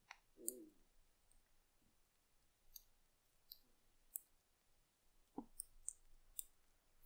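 Faint popping, bubbly clicks from a clear slime full of salted sunflower seeds, about eight small pops scattered over the stretch and bunched near the end. The salt has broken the slime down, leaving it melting and lumpy.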